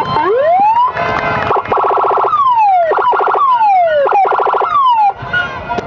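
Electronic multi-tone police-escort (patwal) siren sounding through a TOA horn speaker and switching between tones. It gives one rising whoop, then blocks of rapid pulsing alternating with three falling sweeps, and cuts off about five seconds in.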